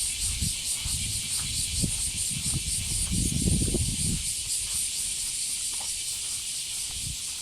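Dense chorus of many cicadas shrilling together as one high, steady buzz with a throbbing pulse. A low rumble rises briefly about three seconds in.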